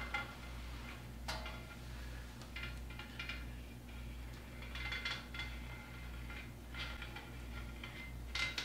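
Faint, scattered metallic clinks and light scrapes as a small LED flashlight is run along a steel straight edge lying on a surface grinder's magnetic chuck, over a steady low hum.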